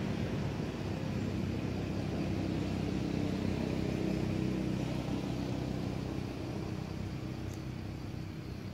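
A motor vehicle's engine hums steadily in the background and slowly fades away.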